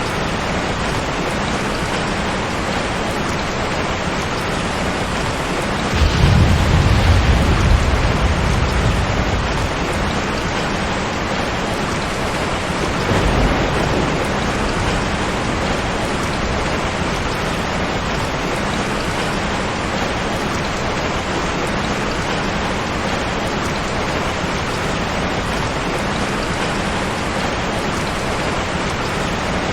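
Steady rain with rolling thunder. A low rumble swells about six seconds in and lasts a few seconds, and a fainter rumble follows around thirteen seconds.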